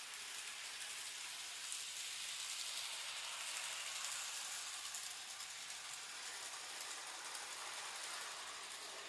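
Z gauge model train running on the layout's track: a faint, steady high-pitched whir and hiss with light clicking, swelling a little midway as it passes closer.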